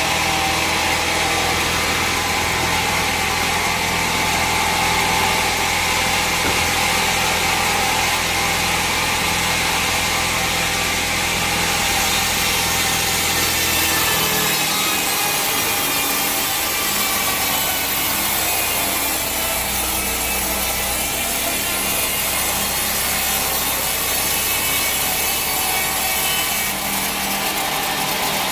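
Sawmill saw cutting through a log, a steady whine over the hum of the mill's machinery. The low hum drops away about halfway and returns a few seconds later.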